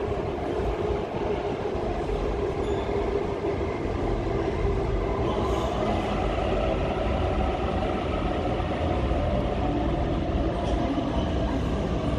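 Sydney Trains double-deck electric train pulling in along an underground platform: a steady rumble of wheels on rail with a constant motor whine, echoing in the station.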